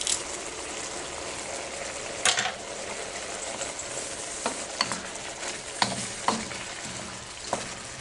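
Beef and sweet red pepper sizzling in a wok while a wooden spatula stirs them, with several sharp scrapes and knocks of the spatula against the pan.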